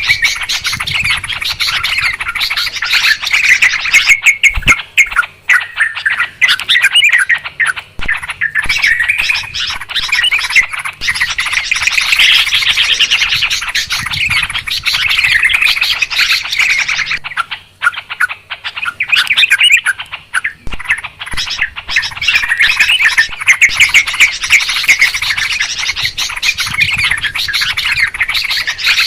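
Yellow-vented bulbuls chattering and calling continuously, many rapid overlapping notes from several birds at once. It is a noisy, busy flock call of the kind used as a lure recording to bring bulbuls down.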